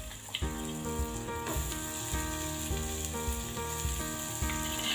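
Chopped onion sizzling in hot melted butter in a frying pan: a steady frying hiss, with soft background music playing underneath.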